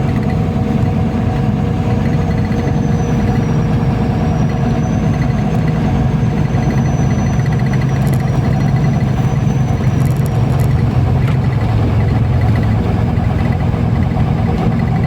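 MAZ-203 city bus running, a steady low engine drone with a faint high whine above it.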